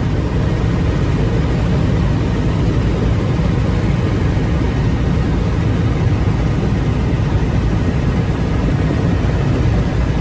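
Airliner cabin noise: a steady, loud rush of jet engines and airflow heard from inside the plane.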